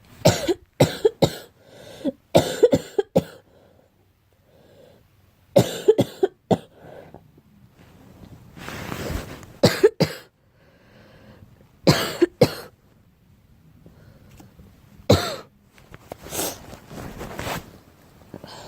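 A girl coughing in repeated short fits of one to four sharp coughs, with pauses of a second or more between fits.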